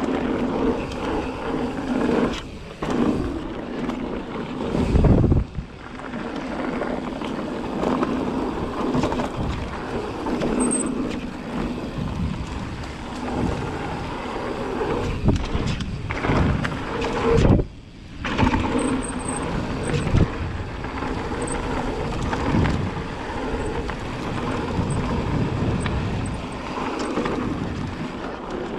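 Mountain bike riding fast down dirt singletrack: tyre and frame rattle with a steady buzz, and wind on the microphone. Two heavy thumps from hits on the trail, about five seconds in and again at about seventeen seconds.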